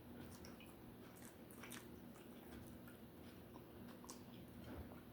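Faint chewing of a cheeseburger, with a few soft, wet mouth clicks scattered through it.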